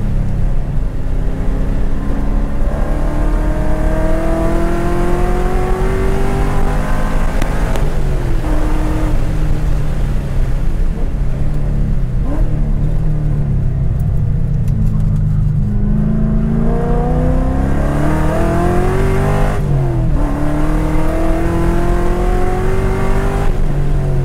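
2010 Corvette Grand Sport's 6.2-litre LS3 V8 heard from inside the cabin while being driven hard on track. Its pitch climbs in long pulls and falls back around eight seconds in, then drops sharply about twenty seconds in before climbing again.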